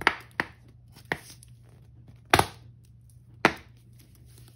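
Five sharp, crisp crackles of Ajax cleanser powder and paste being handled in a plastic container, at irregular spacing, the loudest about two and a half seconds in.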